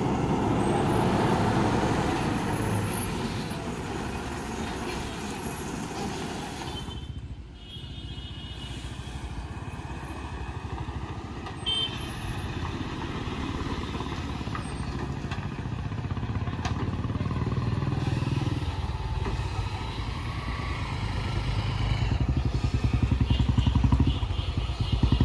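Heavy lorry diesel engines running slowly as trucks pull round a tight hairpin bend. The sound drops out briefly about seven seconds in, then picks up with a heavily loaded multi-axle lorry whose engine pulses louder near the end as it comes closer.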